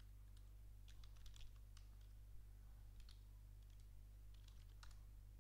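Faint computer keyboard keystrokes, typing a short command in small, irregular clusters of clicks, over a steady low hum.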